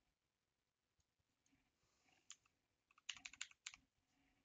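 Computer keyboard typing: a few faint single key clicks, then a quick run of about eight keystrokes about three seconds in.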